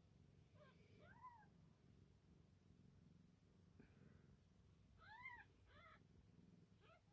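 Newborn Maine Coon x Sphynx kittens mewing faintly: a few short cries that rise and fall in pitch, a pair about a second in and a few more around five to six seconds in.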